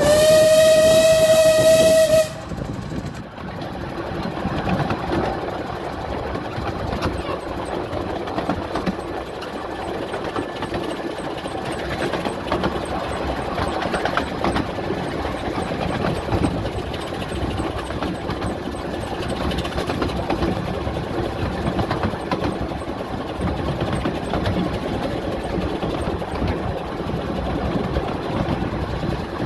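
Whistle of a 15-inch gauge Ravenglass and Eskdale Railway steam locomotive giving one loud, steady blast of about two seconds, then the steady running noise of the locomotive at speed, heard from on the engine itself.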